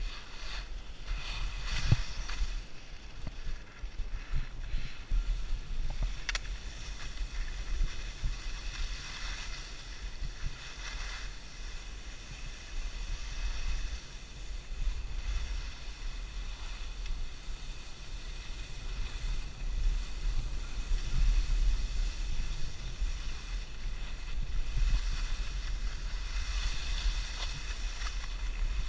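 Wind buffeting the microphone as a low rumble, over the hiss of skis sliding and scraping on snow, which swells now and then.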